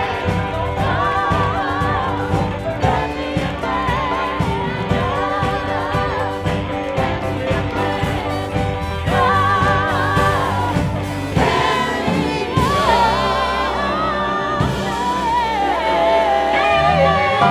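A song with sung vocals over a band keeping a steady beat; about two-thirds of the way through, the beat drops away and the singing carries on with a held, wavering melody.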